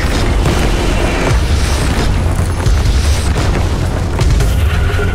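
Film sound effects of explosions: a series of heavy booms as blasts hit the ground, over a dramatic music score.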